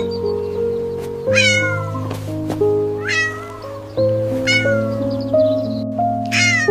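A kitten meowing four times, short high calls that fall in pitch, over background music of sustained notes.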